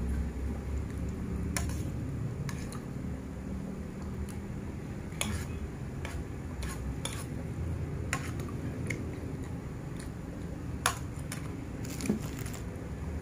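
A metal spoon clinking and scraping against a plate while eating, as scattered light clicks about a dozen times, the sharpest near the end, over a steady low background rumble.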